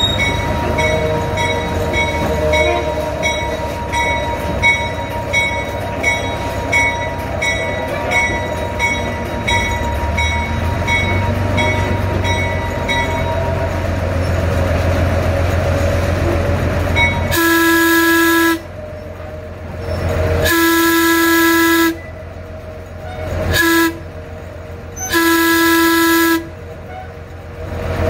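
Diesel switcher locomotive running steadily, then its air horn sounds the grade-crossing signal: two long blasts, a short one and a long one, the loudest sound here. For the first half a faint regular tick comes about every three-quarters of a second.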